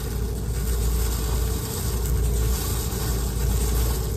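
Quick-cook grits poured into a stainless saucepan of hot milk and water and stirred with a silicone whisk, over a steady low rumble.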